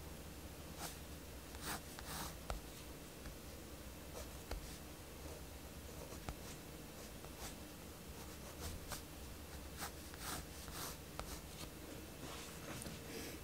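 Mechanical pencil scratching across sketchbook paper in short, irregular strokes, some in quick clusters.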